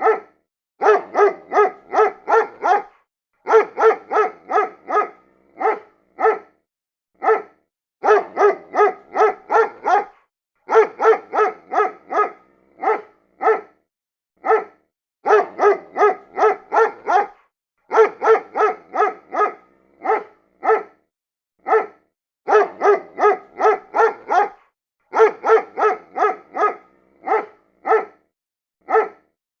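A dog barking in quick runs of five or six barks with single barks between them. The same sequence repeats about every seven seconds, as a looped sound-effect recording.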